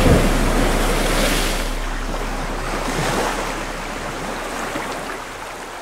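Ocean water: a heavy splash at the start, then a rushing wash of sea and surf that slowly fades away.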